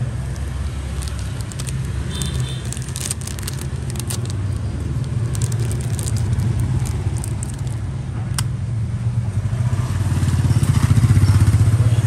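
A motor vehicle engine runs steadily with a low rumble that swells near the end. Scattered light clicks and rattles come in the first half, and one sharp click comes about eight seconds in.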